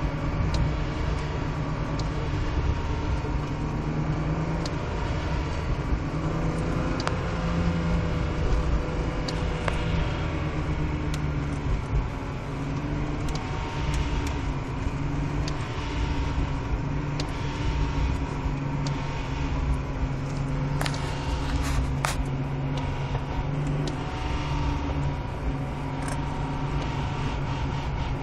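BMW E36 running on the road, the engine and drivetrain holding a steady note with a thin whine above it. The uploader notes an odd noise from the car, most noticeable around 3000 rpm and especially off the throttle or with the clutch pressed.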